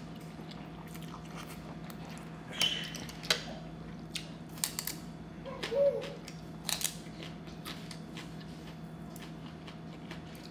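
Close-up eating sounds: chewing with several short crisp bites scattered through the middle, as raw green vegetables are bitten alongside a mouthful of rice noodles. A faint steady hum runs underneath.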